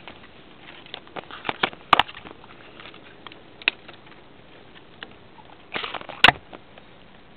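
Climbing and handling noise in a willow tree: irregular rustling, crackles and clicks of hands and body moving among branches and leaves, with two sharp knocks, one about two seconds in and one near the end.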